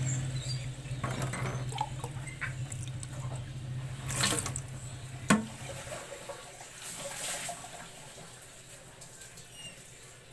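Water running and splashing at a sink while a mug is washed by hand, with a clatter about four seconds in and a sharp knock of the mug a little after five seconds. The water sound dies down after about six seconds.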